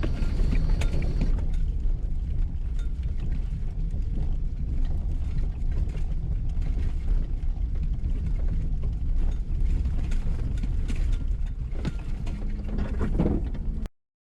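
Vehicle driving over a rough road: a steady low rumble with small rattles and knocks throughout, cutting off suddenly near the end.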